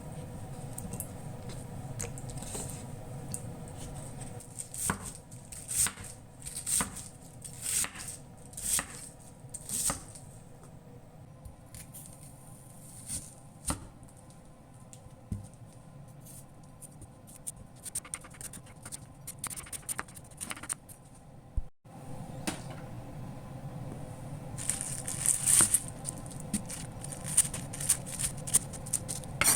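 Kitchen food-preparation sounds: short scrapes and knocks, about one a second for a few seconds, then a busier run of sharper ones near the end, over a steady low hum.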